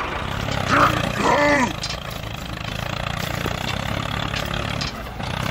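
Tractor engine idling with a steady low rumble. About a second in, a short voice-like cry rises and falls in pitch.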